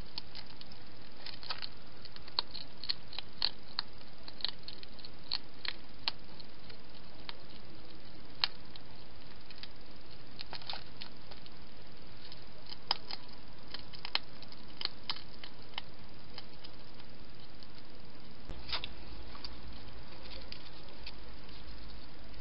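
European hedgehog feeding at a plastic bowl: irregular small crunching clicks as it chews, coming thickly for the first several seconds, then more sparsely, over a steady hiss.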